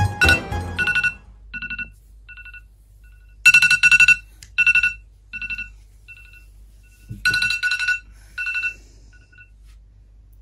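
Smartphone alarm ringing: a repeating pattern of short electronic beeps, swelling into louder groups about every four seconds, then stopping about a second before the end.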